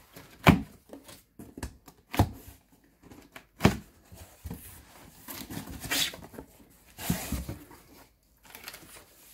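Cardboard shipping box being opened by hand: three sharp knocks and thumps in the first few seconds as the flaps are pulled open, then rustling of the paper packing inside.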